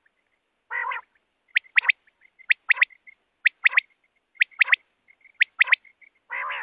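Common quail song: sharp three-note phrases, one note followed by a quick pair, repeated about once a second. A lower, harsher call comes twice, about a second in and again near the end.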